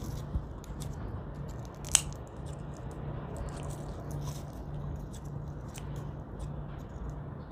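Kitchen scissors snipping the dry tops off shallot seed bulbs to trim them for sprouting: a string of small crisp snips and clicks, with one louder snap about two seconds in. A low hum pulsing about twice a second runs underneath.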